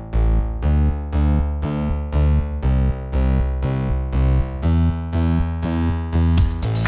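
Background music: a synthesizer keyboard playing repeated decaying notes, about two a second, over a steady bass. Near the end a drum beat with a bright hi-hat comes in.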